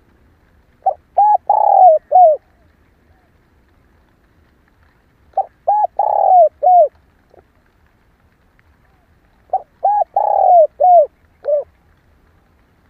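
Female spotted dove cooing: three phrases about four seconds apart, each of four or five short coos with a longer, downward-bending note among them.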